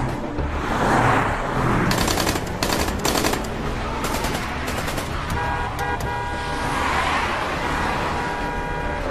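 Rapid bursts of automatic gunfire fired from a moving car, about two and three seconds in, then a car horn sounding for several seconds near the end, over a steady rumble of car engines and traffic.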